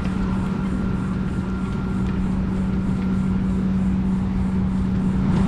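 Vehicle driving: a steady engine drone with a low rumble. The sound cuts off suddenly at the very end.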